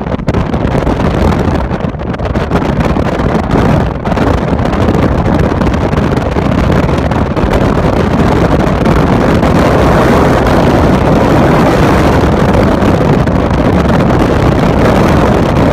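Very strong rear-flank-downdraft wind from a tornado blasting the microphone and the chase vehicle: a loud, steady rush that grows louder about four seconds in.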